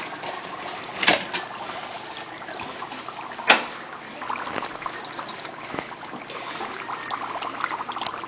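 Dry ice bubbling in a mug of hot water, a steady watery churning. Two sharp knocks cut through it, about a second in and, louder, about three and a half seconds in.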